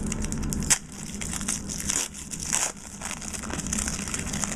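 A trading card pack's wrapper crinkling irregularly as it is handled and opened, with a sharp click about three-quarters of a second in.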